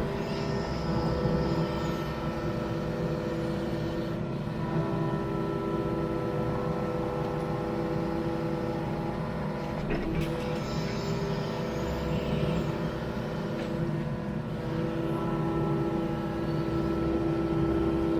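Yanmar VIO55 mini excavator's diesel engine running steadily, its pitched hum shifting a few times as the hydraulics take load.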